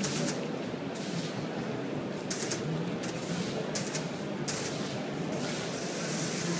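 Water screen releasing patterns of falling drops that splash into its basin, heard as short bursts of hiss about once a second that run into a steadier hiss near the end, over steady hall background noise.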